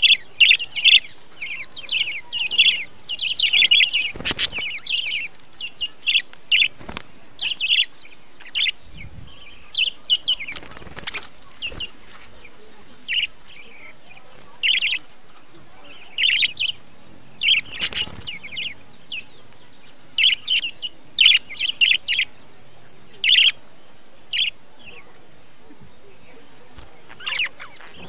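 Budgerigars chirping and chattering in quick, short bursts, densest in the first few seconds and again about 20 to 23 seconds in. A few louder wing-flapping flutters come at about 4, 11 and 18 seconds.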